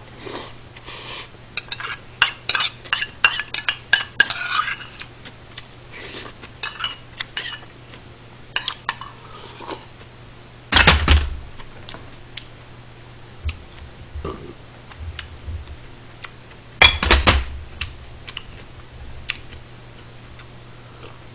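A metal spoon scraping and clinking against a stainless steel rice bowl, with a quick run of clinks in the first few seconds. Two louder clatters with a dull thud come about 11 and 17 seconds in.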